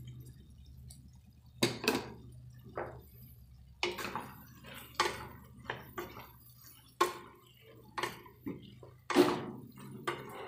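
Wooden spatula stirring chopped vegetables in a nonstick kadai, knocking and scraping against the pan about ten times at an uneven pace, over a low steady hum.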